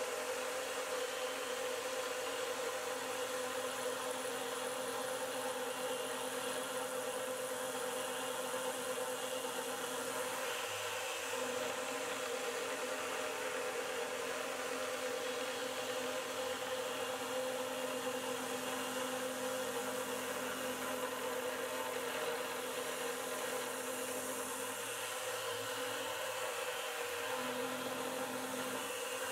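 Converted PM25MV CNC mill's spindle running steadily while an end mill cuts aluminium: a steady whine with a hiss of cutting over it.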